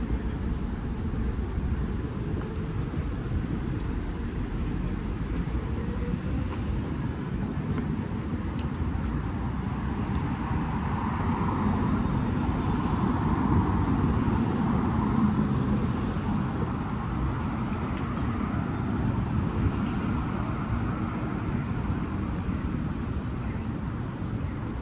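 City street traffic: a steady wash of road noise, with a vehicle passing more loudly about halfway through.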